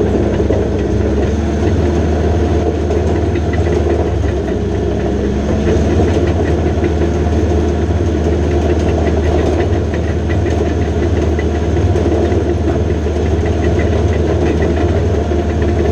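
Diesel engine of a John Deere 450J LT crawler dozer running at a steady speed, with a strong low hum.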